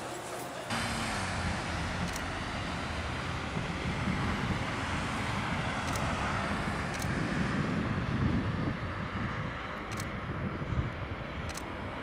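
Airbus A380's four turbofan engines at takeoff power as the airliner rolls down the runway and lifts off: a steady, heavy jet noise that sets in about a second in.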